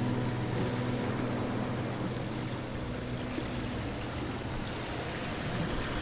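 Raw ground beef patties sizzling in hot oil in a nonstick skillet, a steady even hiss over a low steady hum; guitar music fades out in the first two seconds.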